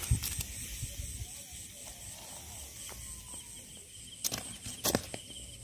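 Hands working a wet cast net to free fish from its mesh: soft rustling and thumps, with two sharp clicks a little after four seconds in. A steady high chirring runs behind.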